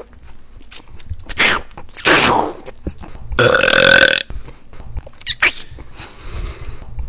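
A man making loud belching, gagging noises with his mouth full of red sauce-covered food: four rough throaty bursts, the loudest about two and nearly four seconds in.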